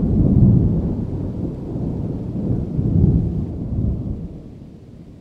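Deep rolling rumble that swells twice and dies away near the end.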